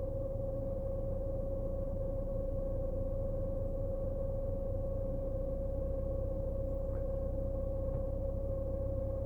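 Steady humming tone from the rear of a BMW Z4 E89, one even pitch with fainter overtones, over a low rumble; the cause of the hum is unidentified.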